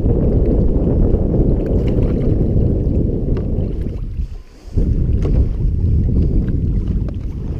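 Strong wind buffeting the microphone, a loud, uneven rumble that dies away for about half a second around the middle and then comes back.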